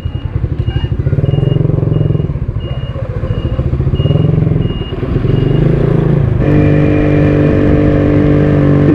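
CPI Tyke 100 motorcycle engine running on the move, its pitch rising and falling, with a high electronic beep repeating about twice a second for the first six seconds. After that the engine runs at a steadier, louder pitch.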